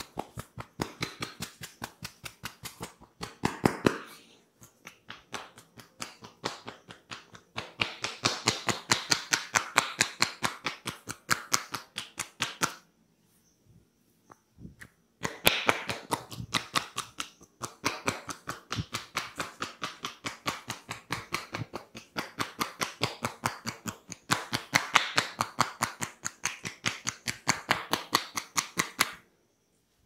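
Rapid, even tapping of hands on a person's head and hair during a head massage, about five strikes a second. The tapping comes in runs, softer for a few seconds early on, and stops for about two seconds in the middle before starting again.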